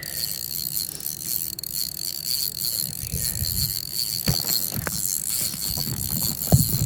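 Fishing reel being cranked, its gears and ratchet clicking, with a few sharp clicks along the way.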